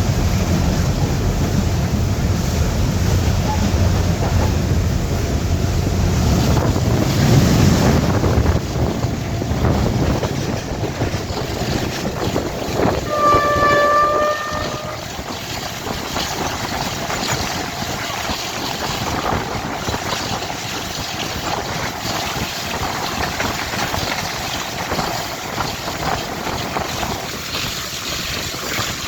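Pakistan Railways diesel locomotive hauling the Tezgam Express past, its engine rumbling heavily at first. A short horn blast sounds about thirteen seconds in, followed by the steady clatter of the coaches running over the rails.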